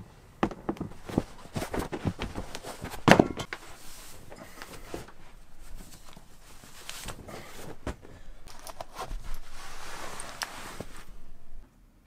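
Footsteps on carpeted stairs: a run of soft thuds and knocks, with one louder thump about three seconds in. Later comes a spell of clothing rustling, which cuts off sharply just before the end.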